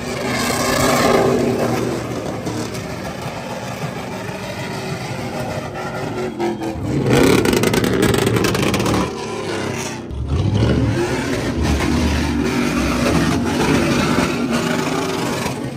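Pickup truck engine running and revving while driving, its sound changing abruptly about seven and ten seconds in.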